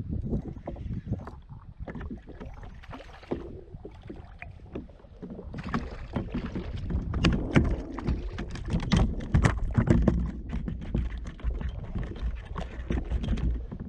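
Knocking and clattering on a fishing kayak: a dense run of sharp knocks and clicks against the hull over a low rumble of water and wind, busiest in the second half.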